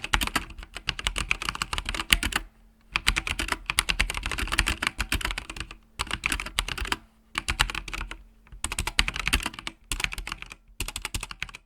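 Typing on a Logitech G513 mechanical keyboard with GX Red linear switches: rapid runs of key clicks in bursts of a second or two, with short pauses between them.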